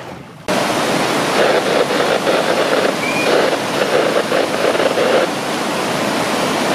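Water rushing and churning into a lock chamber as the lock is flooded at low water, a loud, steady rush of turbulent water that starts suddenly about half a second in.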